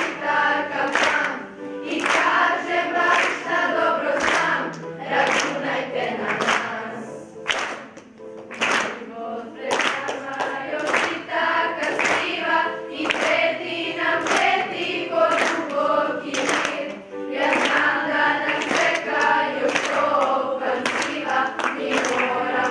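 Children's school choir singing a song together, with sharp regular beats sounding along with it.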